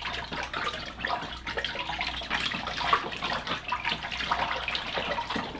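A hand swishing and stirring paper pulp in water inside a deckle box, breaking up clumps of fibre: a continuous run of small irregular splashes and sloshes.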